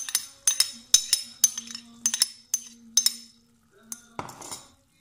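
Metal spoon clinking against the pan while scraping tomato paste off into the sauce: a quick run of sharp, ringing clinks, about four a second, that stops about three seconds in. A short, duller sound follows about four seconds in.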